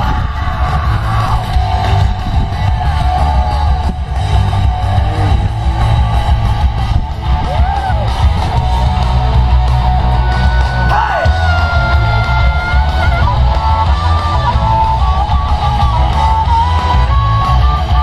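Loud rock music with guitar over a heavy, steady bass.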